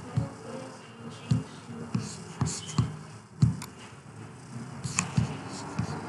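Irregular soft knocks and clicks of handling on a desk, about a dozen spread unevenly, with a brief rustle now and then.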